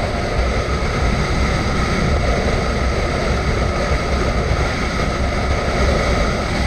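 Motorcycle riding steadily at road speed, heard from a camera on the bike: a constant low rush of wind over the engine and road noise, without change.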